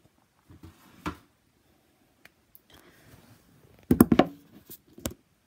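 Handling noise from an iPad being moved and propped up against a box: a few knocks and rubs, with the loudest cluster of knocks about four seconds in and a single knock near the end.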